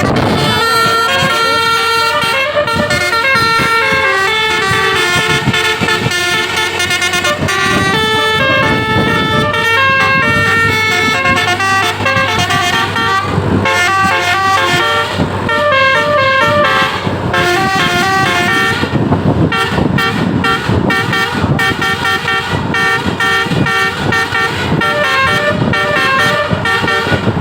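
Bus's telolet Basuri musical air horn playing a tune of quickly stepping notes over a steady low engine and road rumble.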